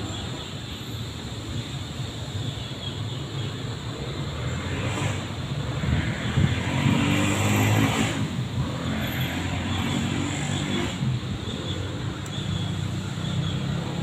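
Road traffic rumbling steadily, with one vehicle passing by that swells and is loudest about seven to eight seconds in, then fades.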